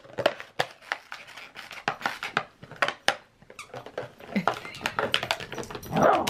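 A miniature schnauzer chewing and gnawing a thick plastic water bottle: a busy, irregular run of plastic crackles, clicks and squeaks. A short dog vocal sound comes near the end.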